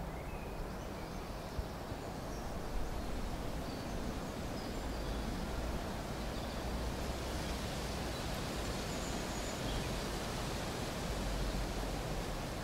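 Field recording of a quiet wooded park: a steady background hiss over a low rumble, with a few faint chirps of distant small birds.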